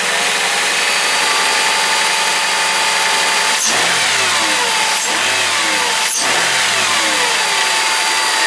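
Mercedes-Benz S500 5.0-litre V8 running after a restart with a new crankshaft position sensor fitted, the sign that the no-start fault is cured. It runs steadily with a constant whine, and three short clicks come through midway.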